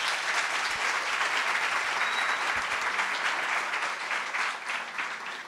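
Audience applauding steadily in a large room, tailing off near the end.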